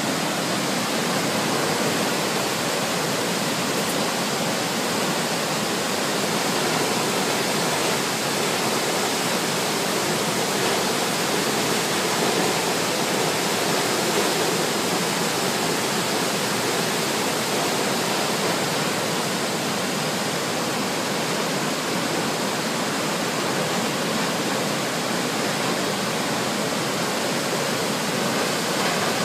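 Waterfall in flood: a heavy, muddy torrent pouring down a rock face and rushing over boulders below, a steady, unbroken rush of water.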